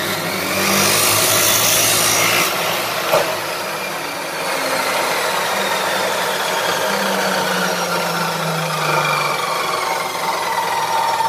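Abrasive cut-off saw (Planet Power Hammer series) with a green abrasive disc, grinding through metal with a loud hiss for about two seconds. After that the head is raised and the disc spins down freely with a slowly falling whine.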